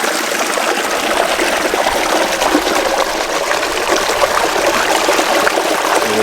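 Shallow river water running and trickling over rocks close by, a steady rushing babble.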